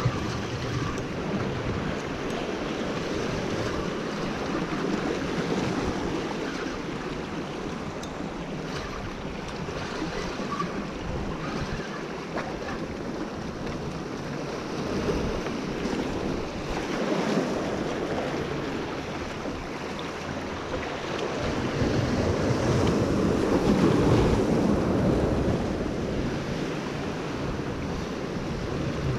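Surf washing and breaking over jetty rocks, with wind buffeting the microphone. The wash swells loudest about three quarters of the way through.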